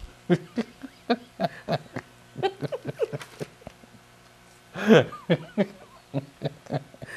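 A man and a woman laughing softly in short chuckles, with a louder burst of laughter about five seconds in.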